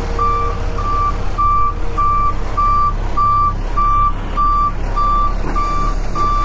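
Septic tank delivery truck backing up: its reverse alarm beeps steadily at one pitch, a bit under two beeps a second, over its running engine. The beeping stops right near the end.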